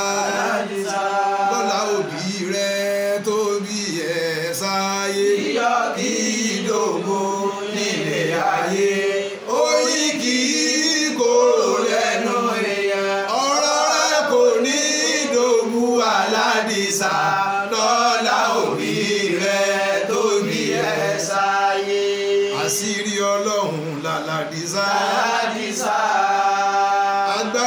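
A man's voice chanting a song solo, in long held melodic phrases broken by short pauses.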